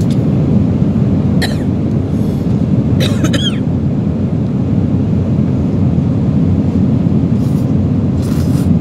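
Steady low drone of an airliner cabin in flight, with a few short noises on top: about one and a half seconds in, around three seconds, and near the end.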